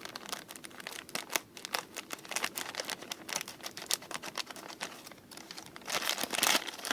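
Thin plastic packaging crinkling and rustling as a bag is torn open and handled, a dense run of small crackles growing louder near the end.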